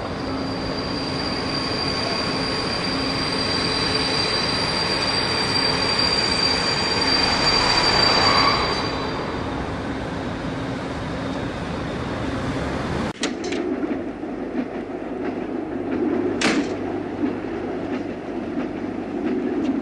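Passenger train running on the rails with a high, steady squeal, growing louder for about eight seconds and then easing off. About thirteen seconds in it cuts abruptly to a quieter, lower rumble, with one sharp click a few seconds later.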